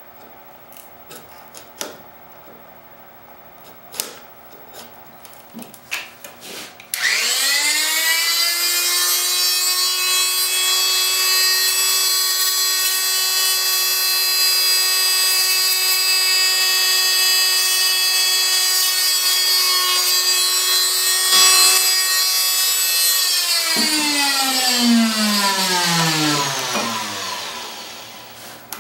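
Fein MultiMaster oscillating tool switched on about a quarter of the way in, rising at once to a steady high-pitched buzz as its blade cuts into plexiglass. Near the end it is switched off and its pitch falls away as it winds down. Light clicks and knocks of handling come before it starts.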